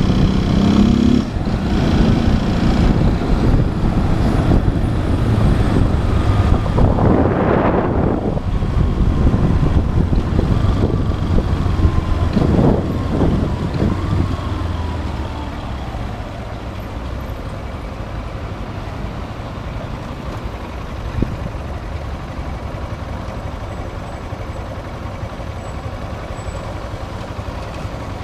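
Motorcycle riding in city traffic: engine and road noise, louder through the first half and settling to a lower steady level after about 15 seconds. Two brief hissing swells come about 7 and 12 seconds in.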